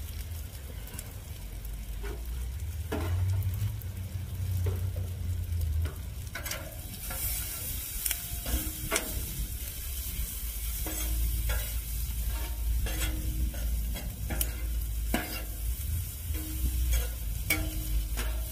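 Sliced onions and bell peppers sizzling in butter on a flat-top griddle, with a metal spatula scraping and clacking against the griddle plate as they are turned, the clacks coming often from about six seconds in. A low rumble runs underneath.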